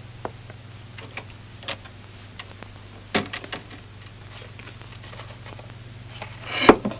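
Scattered light clicks and knocks over a steady low hum. There is a louder cluster of knocks about three seconds in and the loudest knock near the end.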